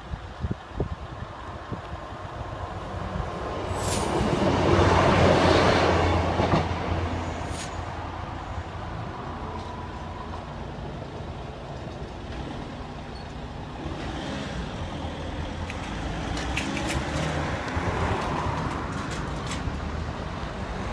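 A train passing over a level crossing, swelling to its loudest about five seconds in and then fading. Near the end, road traffic starts moving across the crossing again.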